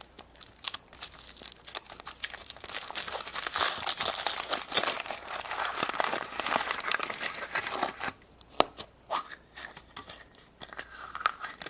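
Crinkly wrapping being torn open and unwrapped by hand: several seconds of dense crackling and rustling that thins to a few scattered crinkles and ticks near the end.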